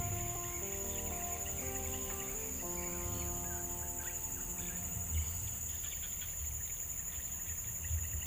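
Steady high-pitched drone of insects in the grass, with soft background music notes that fade out about halfway through, over a low uneven rumble.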